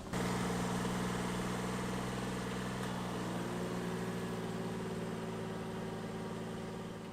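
Daihatsu Hijet's small three-cylinder engine running steadily. It starts abruptly just after the beginning and fades away near the end.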